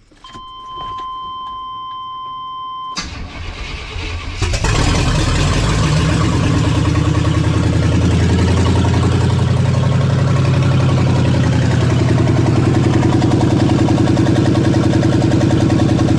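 A steady beep lasts about three seconds. Then the 1988 Chevrolet K1500 pickup's engine cranks for about a second and a half, catches, and settles into a steady idle. It starts now that the distributor has been re-indexed so the rotor points at the #1 plug wire, the fault behind the earlier no-start.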